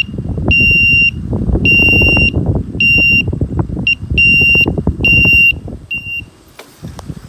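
Electric bike horn beeping a steady, high-pitched electronic tone in about seven short blasts in quick succession, over a low rumbling noise.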